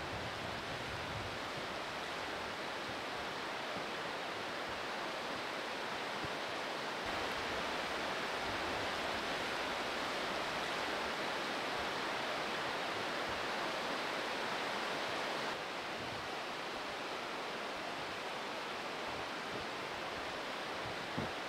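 Oulanka River rapids rushing: a steady, even hiss of white water that swells a little partway through, then drops back suddenly.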